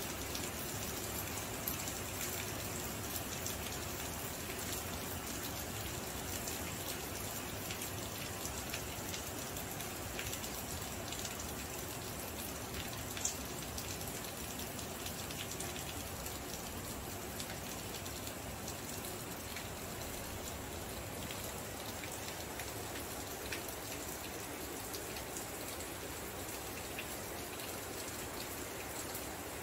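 Steady rain falling: an even hiss of rain with scattered sharper drip ticks.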